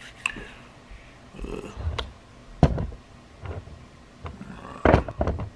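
Handling noise close to the microphone: several sharp knocks and low thumps, the loudest about two and a half seconds in and again near the end, with soft rubbing between.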